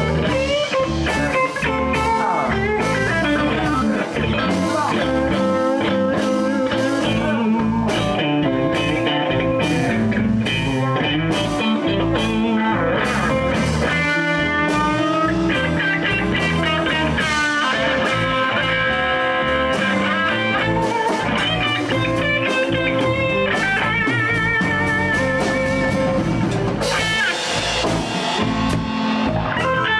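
A blues band playing live, with electric guitars, bass and a drum kit, and a lead line that bends and wavers in pitch.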